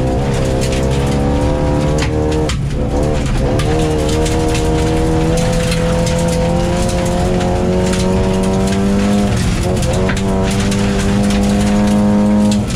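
Rally car engine heard from inside the cabin, pulling hard at high revs with its pitch climbing, dropping briefly at gear changes about two and a half seconds in and again near nine and a half seconds. Gravel clatters against the underside throughout.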